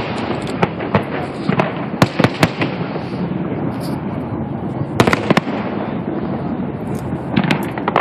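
Aerial fireworks shells bursting: a run of sharp bangs over a steady background of noise, with two close pairs of loud reports about two seconds in and again about five seconds in.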